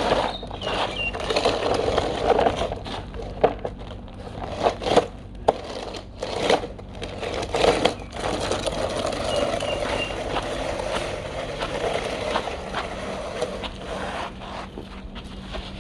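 Radio-controlled Huina toy excavator digging loose dirt: the bucket scrapes and crunches through soil, with many sharp clicks and knocks, over a steady low hum.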